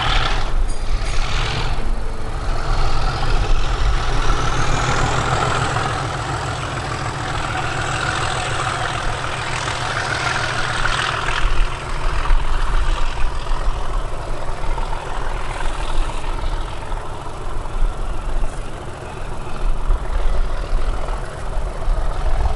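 Diesel locomotive working a train away under power: the engine runs with a heavy low rumble and a high whine that rises in pitch over the first few seconds, then holds.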